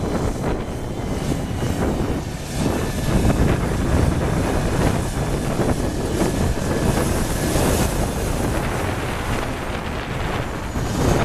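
International 2T70 paddle scraper's 573 turbo diesel V8 running under load as the scraper drives across the field, a steady heavy rumble that grows louder about three seconds in.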